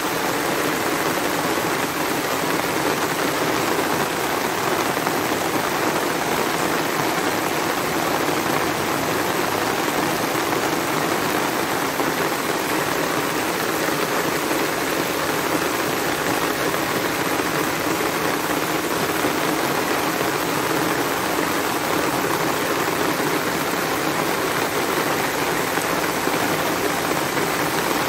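Heavy rain pouring steadily onto wet paved ground and trees: an even, unbroken hiss.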